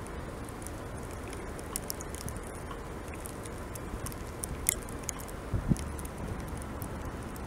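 Outdoor ambience during heavy snowfall: a steady rushing noise with many small, sharp ticks scattered throughout, and a couple of low knocks just before six seconds in.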